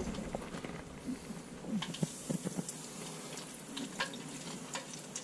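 Steady sizzle of hot oil in an electric deep fryer heated to frying temperature, with a few small crackles and clicks.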